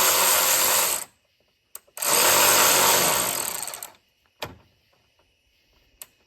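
DeWalt DCF503 12V cordless ratchet running a bolt in short bursts. One run ends about a second in, a second run lasts about two seconds and trails off, and a sharp click follows.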